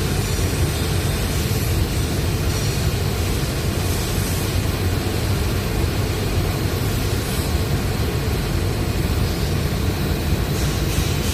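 Spider crane's engine running steadily at work, a constant low machine noise.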